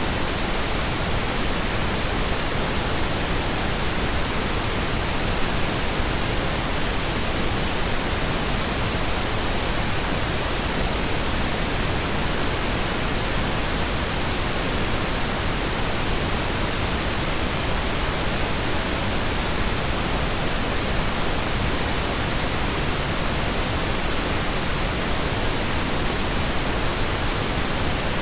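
Steady synthetic pink noise: an even, unchanging hiss across the whole range, with no ticks, chimes or other events.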